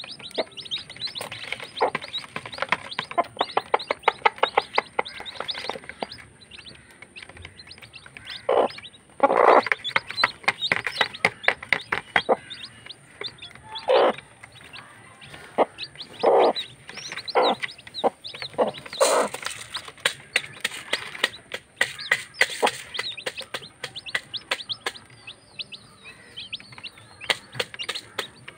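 A brood of newly hatched chicks peeping in a continuous rapid chorus of short high calls as they feed, with a few louder, fuller calls scattered through.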